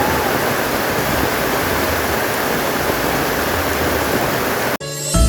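Heavy rain pouring steadily as a dense, even hiss. It cuts off abruptly near the end, and music with chime-like mallet notes begins.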